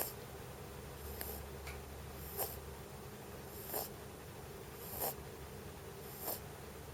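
Pet rabbit snoring, a short snore about every second and a quarter.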